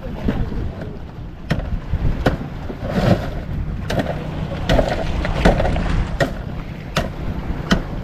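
Small boat at sea: a steady low rumble with sharp knocks about every three-quarters of a second.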